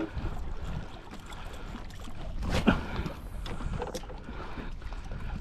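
Water lapping and splashing against a kayak hull, with wind rumbling on the microphone. A sharp knock sounds a little before the three-second mark, the loudest thing here, and a lighter click follows about a second later.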